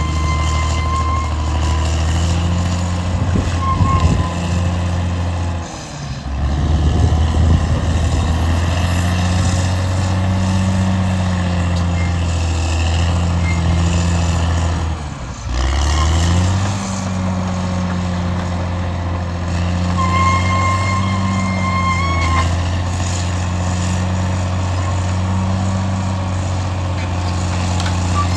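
Caterpillar D6R XL bulldozer's diesel engine running under load. Its pitch rises and falls, and it drops away briefly about six seconds in and again about fifteen seconds in. A high, steady whine comes and goes near the start and again about twenty seconds in.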